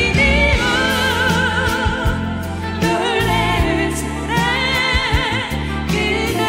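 Two women singing a Korean Christian worship song as a duet through handheld microphones, with vibrato on the held notes, over instrumental accompaniment with a beat.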